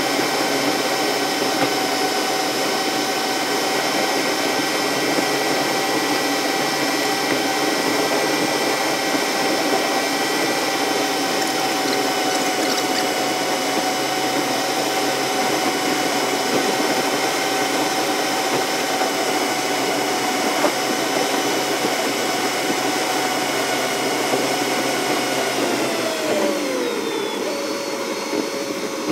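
Car driving, heard in the cabin through a dashcam, with the recording played at about ten times normal speed: the engine and road drone is raised into a steady, high-pitched whine. The whine falls in pitch near the end as the car slows.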